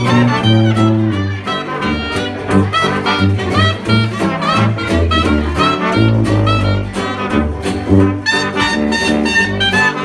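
Traditional New Orleans jazz band playing live: trumpet, clarinet, trombone and tenor saxophone weaving lines together over a sousaphone bass, strummed acoustic guitar and a steady washboard beat.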